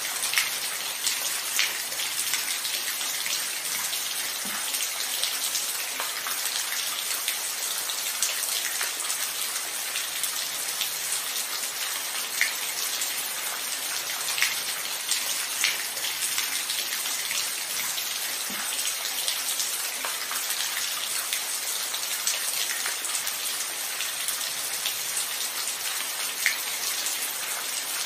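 Steady rain falling: an even hiss with scattered louder drops ticking through it.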